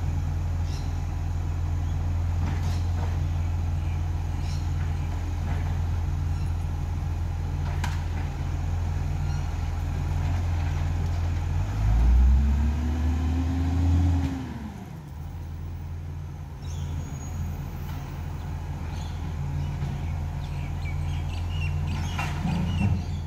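Garbage truck's diesel engine idling with a steady low hum. About halfway through it revs up and back down once, then settles to a quieter idle.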